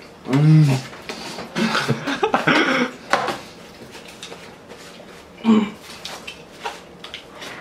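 Paper burger wrappers rustling and crinkling as burgers are unwrapped and the wrappers are balled up. A short wordless vocal sound comes about half a second in, another about five and a half seconds in, with more vocal noise around two to three seconds in.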